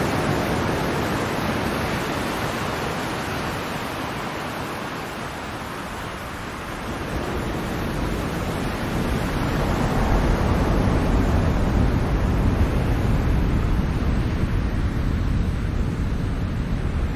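Ocean surf washing in, a steady hiss of water. It eases off about five seconds in, then builds again heavier and deeper from about eight seconds on as the next waves come in.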